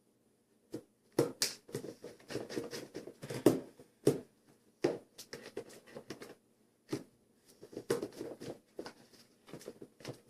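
Slime being stirred with a spatula: irregular sticky clicks and smacks in clusters, with short silent gaps between them.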